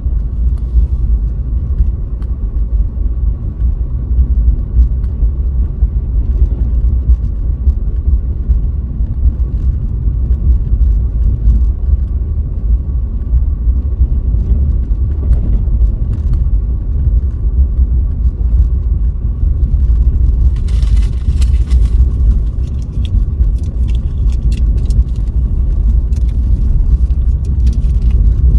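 A car being driven: a steady low rumble of road and engine noise. A brief hiss comes about two-thirds of the way in, followed by scattered light clicks.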